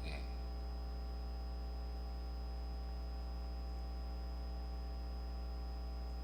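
Steady electrical mains hum with its string of overtones, running unchanged at an even level.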